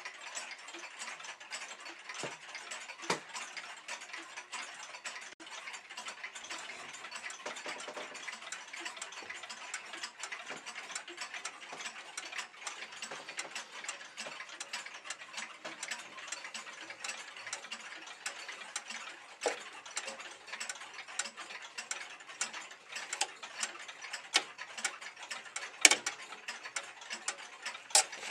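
Several pendulum wall clocks ticking together, a dense, uneven run of overlapping ticks, with a few sharper clicks near the end.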